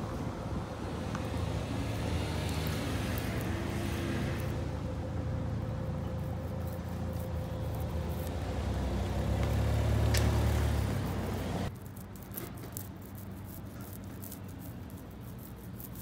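A motor vehicle passing on the adjacent road, a low rumble building to its loudest about ten seconds in; near twelve seconds the rumble drops off abruptly. In the quieter stretch that follows, light crackling comes from a hand ink roller working tacky ink over the cast-iron manhole cover.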